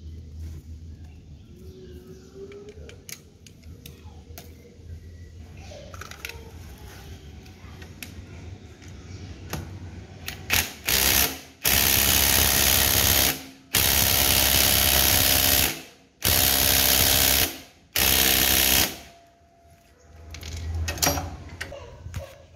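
Cordless impact driver run in two quick blips and then four loud bursts of a few seconds each, tightening screws on the motorcycle engine. Before it, about ten seconds of light clinks and clicks from handling tools and engine parts.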